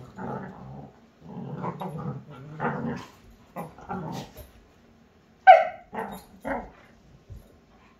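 Two beagles play-fighting: growling in rough stretches through the first half, then one loud sharp bark a little past the middle followed by two shorter barks.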